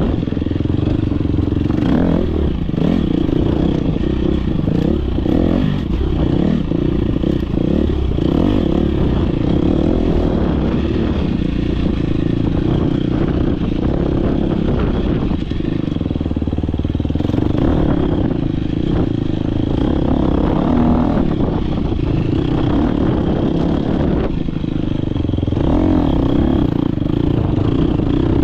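Dirt bike engine running hard under race riding, its pitch rising and falling through throttle and gear changes, heard close from a rider-mounted GoPro. Frequent knocks and clatter from the bike over rough ground are mixed in.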